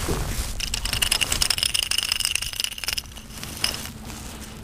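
Spinning reel cranked fast with a rapid clicking whir while a hooked speckled trout is brought in, stopping about three seconds in.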